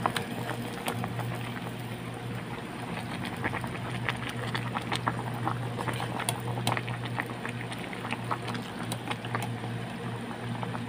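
A stainless steel pot of pork and vegetable broth boiling, with many small irregular pops of bursting bubbles over a steady low hum.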